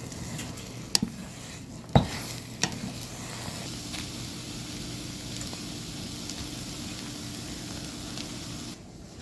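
Meat sizzling in a hot pan, a steady frying hiss, with sharp utensil knocks against the pan about one and two seconds in. The sizzle drops away shortly before the end.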